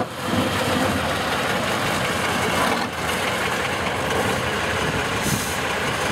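Off-road trial truck's engine running hard as the eight-wheeled truck crawls and tilts through a steep gully, a steady heavy noise.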